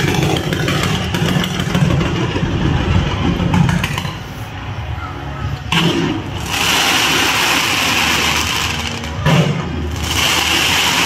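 Fireworks barrage going off without a break: a dense, continuous rumble of launches and bursts overlaid with crackling. The crackle grows stronger about six and a half seconds in and again near the end.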